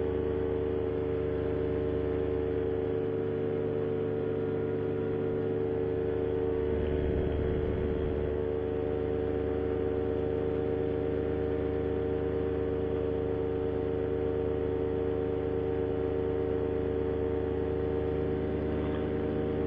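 Moster 185 single-cylinder two-stroke paramotor engine and propeller running steadily at cruise power in flight: a continuous drone made of several steady tones.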